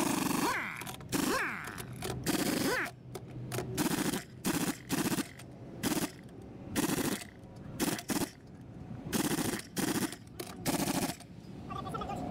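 Pneumatic impact wrench hammering on a heavy truck's wheel nuts to loosen them. It rattles in many short bursts, stopping and starting again.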